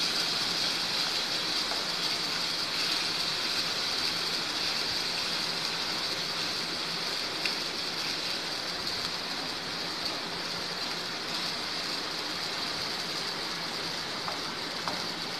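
Ginger-garlic paste sizzling steadily in hot oil in a kadai as it is sautéed, with a few light taps of a wooden spatula against the pan.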